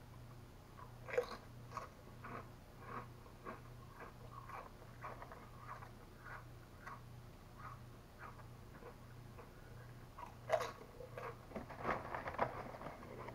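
Chewing a mouthful of thin, crisp Lay's potato chips: a sharp crunch about a second in, then steady crunching about twice a second. Near the end the crinkly chip bag rustles loudly as a hand reaches in for more. A low steady hum runs underneath.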